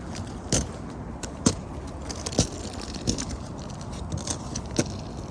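Footsteps crunching irregularly on icy, slushy ground, with scattered sharp crunches and scrapes.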